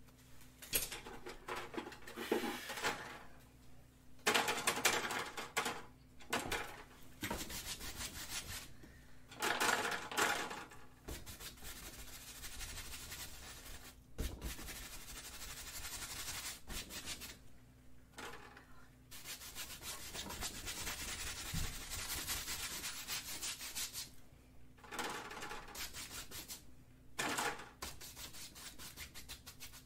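Paintbrush scrubbing paint onto a stretched canvas: runs of rubbing strokes, each a second or a few long, broken by short pauses.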